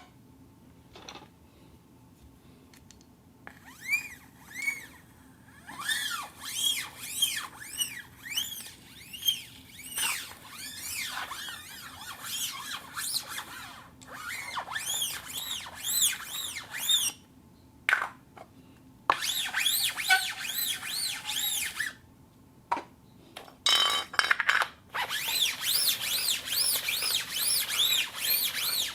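Plastic cup rubbing against a rotating turntable plate, giving rapid high squeaks that rise and fall in pitch, several a second. It comes in three long runs with short pauses between them.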